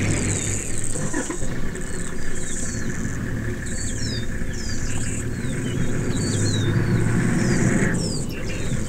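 Low steady hum of an idling safari vehicle's engine, under many short, falling bird chirps and a high insect buzz that pulses on and off about once a second.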